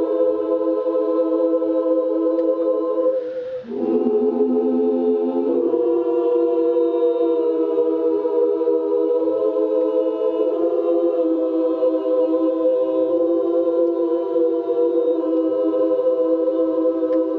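Women's choir singing long held chords, with a brief break about three and a half seconds in before the voices come back in.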